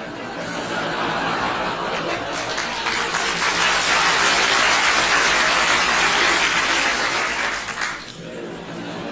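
A crowd laughing and clapping, swelling to a peak in the middle and dropping off sharply about eight seconds in.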